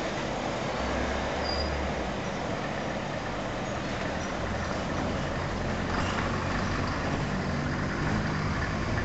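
Freight train rolling away along the track: a steady rumble and rush of the wagons' wheels on the rails.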